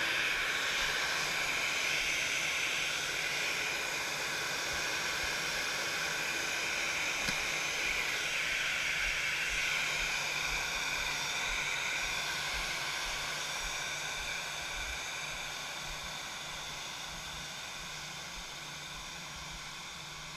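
Airbus A319 jet engines running at idle after startup: a steady hiss with a faint high whine, fading gradually.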